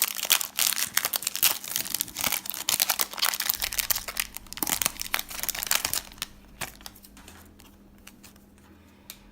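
Foil Yu-Gi-Oh booster pack wrapper crinkling and being torn open, a dense crackle for about six seconds that then dies down to quiet handling.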